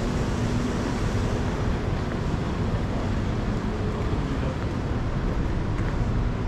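Steady city street ambience: a low rumble of distant traffic with wind noise on the microphone.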